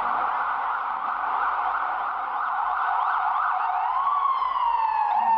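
Several emergency-vehicle sirens sounding at once over a steady hiss: quick repeated rising yelps, then from about four seconds in a wail that climbs and slowly falls.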